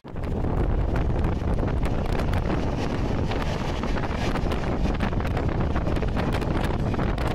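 Wind buffeting the microphone over the steady running noise of a moving passenger train.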